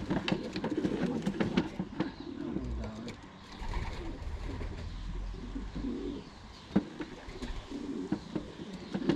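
Domestic racing pigeons cooing in a loft, low repeated calls, with scattered sharp clicks and knocks, one louder click about seven seconds in.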